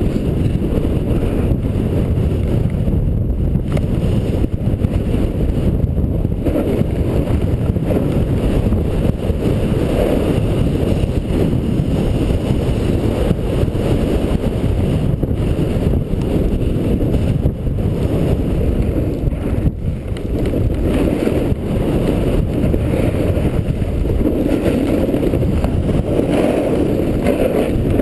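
Steady wind rush on the microphone during a fast downhill run on a groomed slope, mixed with the hiss and scrape of sliding on packed snow. It swells now and then, most around the middle and near the end.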